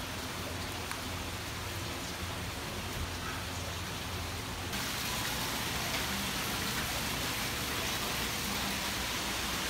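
Steady hiss of water, with a low rumble underneath. About five seconds in it gets louder and brighter.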